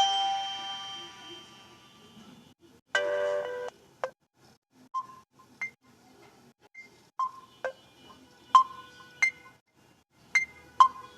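Alarm tones of a Samsung Galaxy J2 running Viper OS, played one after another. A chime chord fades out, a short bright chord sounds about three seconds in and stops abruptly, and then sparse single bell-like notes come at uneven intervals.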